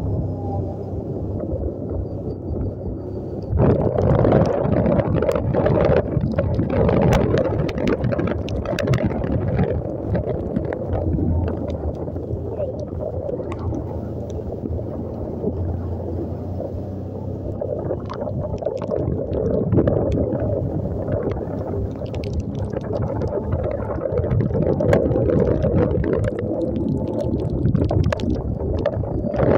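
Motorcycle riding through standing water on a flooded road: the engine hums under the hiss and splash of spray thrown up by the tyres, with wind on the microphone. The splashing grows louder about three and a half seconds in.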